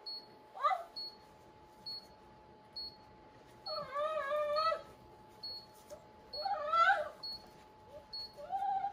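Dog whimpering and whining in several pitched, wavering cries, the longest drawn out for about a second about four seconds in, while its front leg is being bandaged.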